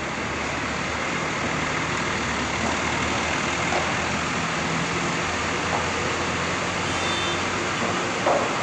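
Bus running on the road: steady engine and road noise.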